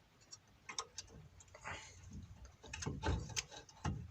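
Light metallic clicks and knocks of a Renault Logan's brake caliper being fitted back into place on freshly greased guide pins, with a louder clatter about three seconds in.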